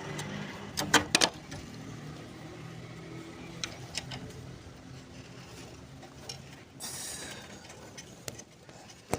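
Sharp metallic clicks and knocks as a sway bar bushing and bracket are worked into place by hand. The loudest pair comes about a second in, with lighter clicks after, over a steady low hum and a short hiss near the end.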